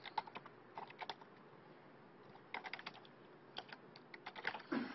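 Computer keyboard typing: faint keystroke clicks in several short runs with pauses between them, a burst at the start, another about a second in, then more from two and a half seconds on, thickest near the end.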